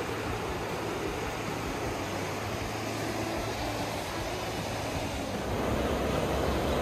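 Steady rushing of small waves washing up on a sandy beach, with wind rumbling on the microphone; it grows a little louder about five and a half seconds in.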